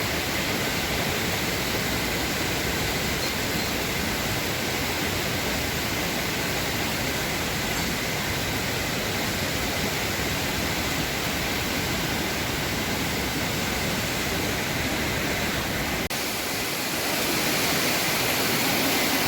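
Upper Düden Waterfall: a steady, even rush of falling water. About three-quarters of the way through, after a faint click, it steps up slightly louder and brighter.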